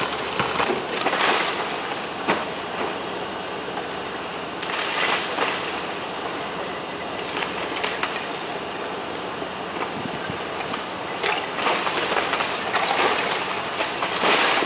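Demolition-site noise on a handheld camera's microphone: a steady mechanical rumble with louder bursts of clatter about a second in, around five seconds in and near the end.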